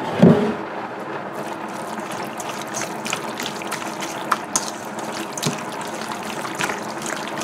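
Wet squelching and squishing of raw chicken pieces being mixed by hand with cassareep and seasonings in a stainless steel bowl, starting about a second in, over a steady background hum. A thump comes right at the start.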